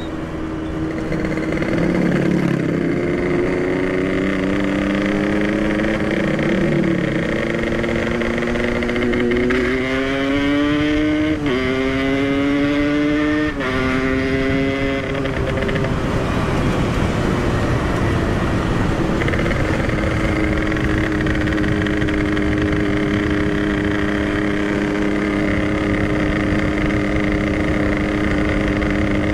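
Yamaha RX King two-stroke single-cylinder motorcycle engine running hard at speed, with wind rush. About ten seconds in, the engine pitch climbs and drops sharply twice as it is shifted up through the gears, then settles into a steady high-revving cruise.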